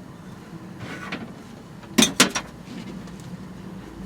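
Kitchen items being handled on a hard surface: a short rustle, then two sharp knocks about a quarter second apart and a softer one, over a faint steady hum.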